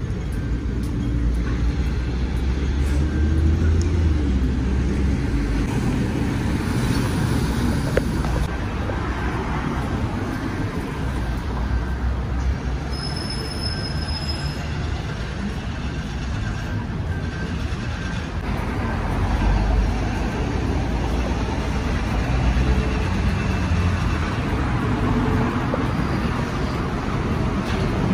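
Steady city road traffic noise, with buses and cars passing on a busy road.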